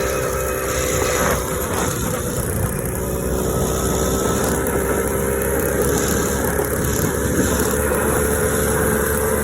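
A motorized Schwinn bicycle's small add-on engine, with ported cylinder, running steadily under way. It gives an even hum whose pitch sags slightly over the stretch.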